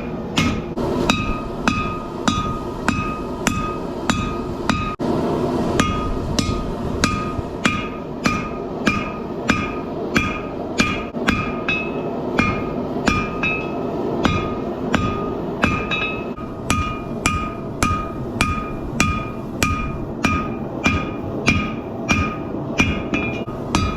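Hammer blows on a hot Damascus steel billet on an anvil, struck in a steady rhythm of about two a second, each blow ringing with a clear metallic tone. A steady rushing noise runs beneath the strikes.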